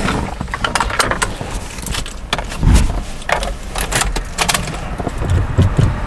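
Seatbelt being pulled across and latched: irregular metallic clicks and jangles over the low rumble of a Honda Civic Si's 2.0-litre K20 engine idling, with a low thump about halfway through and again near the end.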